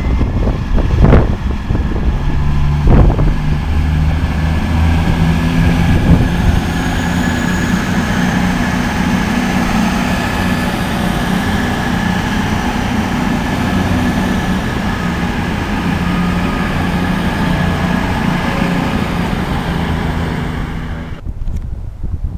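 CrossCountry Voyager diesel multiple unit passing, its underfloor diesel engines running with a steady low hum, with a few loud thumps in the first few seconds. The sound cuts off about a second before the end, leaving wind on the microphone.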